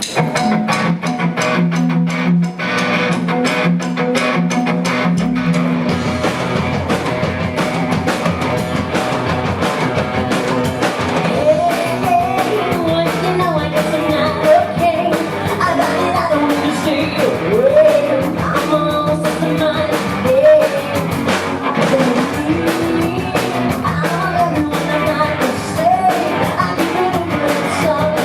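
Live rock band playing a song with guitar and drums; a lead vocal comes in about twelve seconds in and continues over the band.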